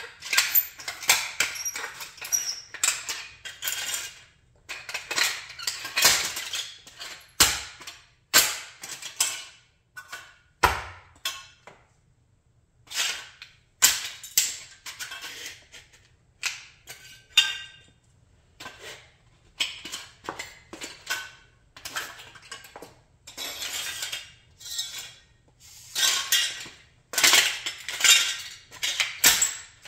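A Chrysler 300B model car being crushed underfoot by high-heeled sandals on a concrete floor: repeated crunches and clinks as its metal and plastic parts break, scatter and scrape on the concrete.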